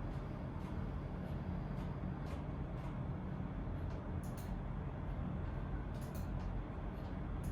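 Steady low room rumble with scattered light clicks, several of them in quick pairs or clusters about halfway through and near the end.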